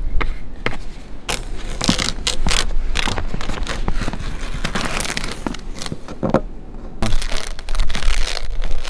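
Blue painter's tape being pulled off the roll, torn and pressed along the edge of a plastic skylight dome: irregular crackling and ripping, over a low rumble of wind on the microphone.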